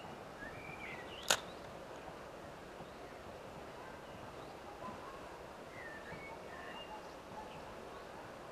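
Outdoor ambience by a small river: a steady soft hiss with scattered bird chirps, and one sharp click about a second in.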